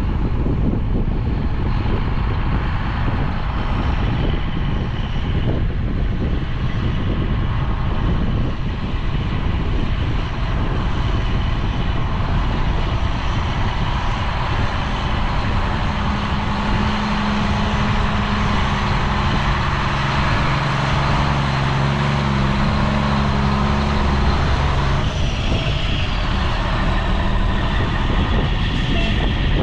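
Heavy farm harvest machinery running steadily. A deeper engine hum comes up about halfway through, and the sound changes about 25 seconds in.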